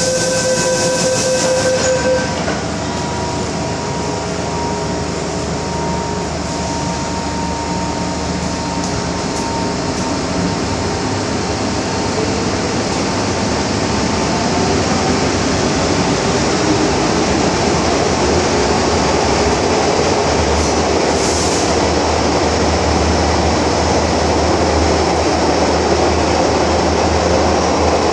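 MTR Island Line M-Train departing a station: a door-closing warning tone stops about two seconds in, then the traction motors whine, rising slowly in pitch as the train accelerates. The running rumble of wheels and track grows louder in the second half.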